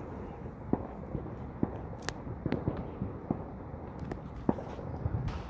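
Backyard firecrackers and fireworks going off in the distance: about a dozen sharp pops and bangs at irregular intervals, over a steady low background rumble.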